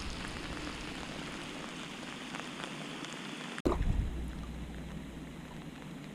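Steady heavy rain falling. A little past halfway the sound changes abruptly, and a brief low thump follows.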